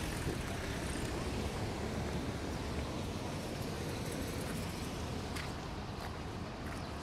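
Road traffic: cars driving past on the street, a steady rumble of engines and tyres.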